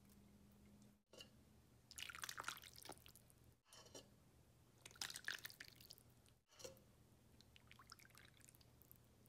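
Meat broth poured from a ladle onto lamb and potato stew in a bowl, three times, each a short run of splashing and dripping liquid.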